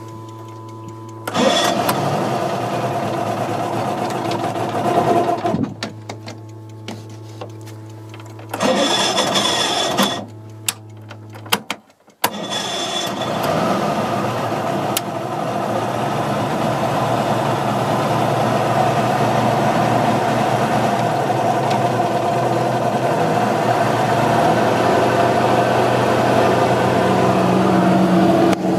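A 1965 OMC 90 hp boat engine being started with the key. Two starting attempts, one about four seconds long and one about a second and a half, die out with a steady electric hum in between. About twelve seconds in the engine catches and keeps running, slowly gaining.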